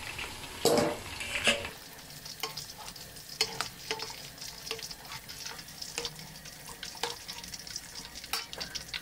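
Pork pieces deep-frying in hot oil in a metal wok, with a steady sizzle and constant small crackles, while a metal skimmer stirs through the oil and lifts out the pork, which has turned golden. Two louder clatters of the utensil in the wok come in the first two seconds.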